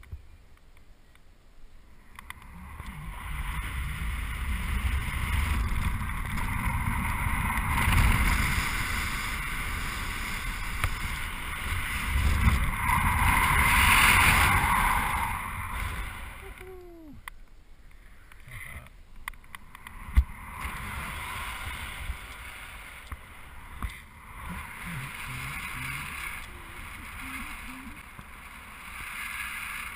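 Wind rushing over a GoPro's microphone in paragliding flight. It builds over the first few seconds, is loudest a little before halfway, then falls to a quieter, uneven rush, with one sharp knock about two-thirds of the way through.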